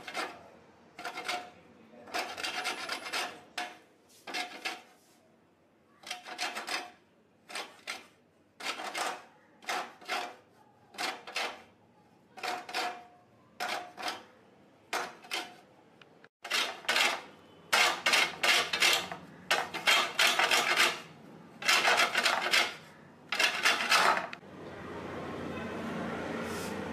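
Dried coconut grated by hand on a flat round stainless-steel grater plate: rasping strokes in short runs with pauses between them. The strokes come faster and louder for the last several seconds, then stop, leaving a steady low hum.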